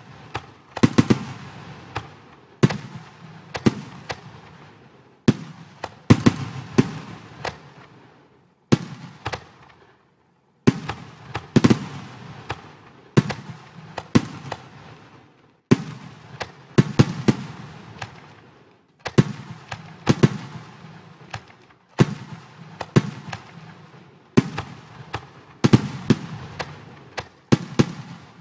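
Simulated fireworks from a computer fireworks program: sharp bangs every second or so, often in quick pairs or clusters, each trailing off in a fading crackle. A silent gap of about a second comes roughly ten seconds in.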